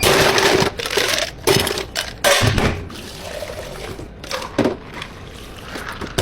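Liquid pouring into a cup, with several sharp knocks from cups or containers being handled. It is loudest in the first three seconds and quieter after that.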